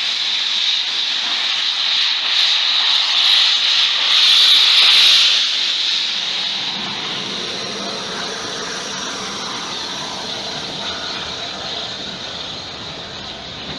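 Steam hissing loudly from the rebuilt Bulleid Merchant Navy class 4-6-2 steam locomotive 35028 Clan Line as it moves slowly past. The hiss is loudest about four to five seconds in, then eases under a lower rumble as the engine rolls by.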